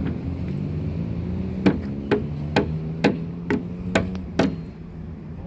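Hammer blows: seven quick strikes about two a second, starting a little under two seconds in, each with a short ring, over a steady low hum.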